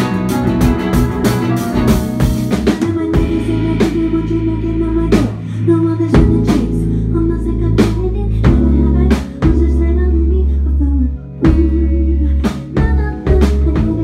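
Live indie-pop band playing: electric guitar, bass guitar and drum kit. The busy full sound thins about three seconds in to a sparser groove of heavy bass and regular drum hits.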